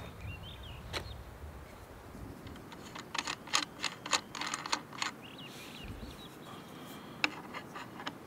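Quick run of small mechanical clicks and clatters, about eight in two seconds, from the Kral Puncher Breaker air rifle being handled and its action worked by hand, with a few single clicks before and after. A bird chirps twice in the background.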